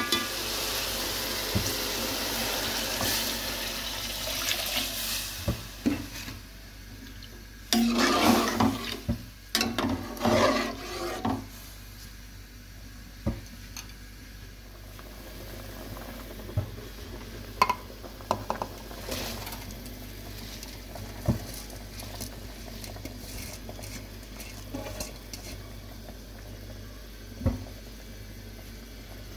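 Cooking sounds at a pan: a rushing, water-like hiss for the first five or six seconds, then a few loud scraping bursts, then scattered short clacks of a utensil against the pan.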